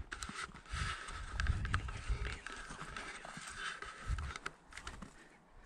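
Footsteps crunching through thin snow on a dirt field track, an irregular run of soft thuds with a crisp crunch on each step.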